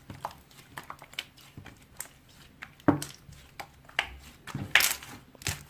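Scattered small clicks and taps, with a sharper knock about three seconds in and a short rustling burst near the end.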